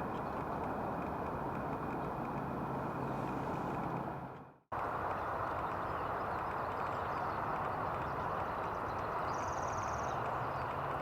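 Steady outdoor background rumble and hiss with a low hum in the first part. It fades out and drops to silence about four and a half seconds in, then cuts straight back in. A faint, short, high-pitched trill comes near the end.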